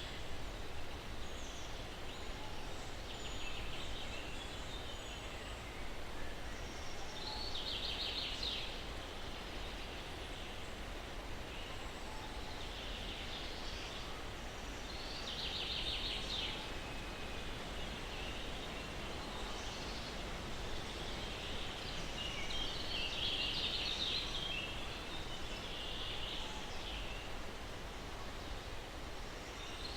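Steady breeze rustling through pine trees, with a low rumble underneath. Birds sing over it in short, rapid trilled phrases about every four to five seconds.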